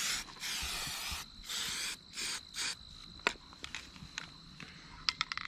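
Aerosol spray can of primer hissing in four or five short bursts over the first three seconds, then a few light clicks.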